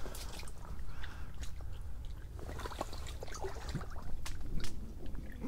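A wader stepping through shallow water: irregular sloshing and small splashes, with scattered clicks and crackles over a low rumble.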